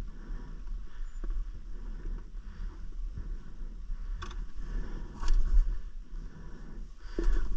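Dirt bike engine running on a rough trail, heard as a muffled rumble with scattered knocks and clatter, and louder bursts about five seconds in and near the end.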